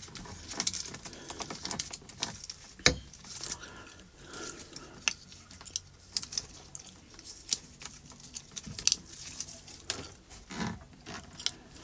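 Irregular light clicks, taps and rattles of hands working horn-kit wiring through the plastic dash panel of a side-by-side, with one sharper knock about three seconds in.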